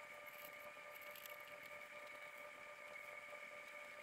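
Near silence: room tone with a faint steady electrical whine and a few faint small clicks.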